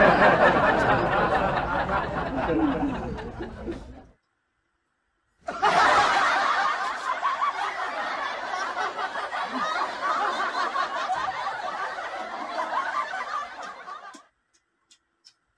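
Crowd laughter sound effect: many people laughing at once, in two stretches, the first fading out about four seconds in and the second starting a second later and cutting off near the end.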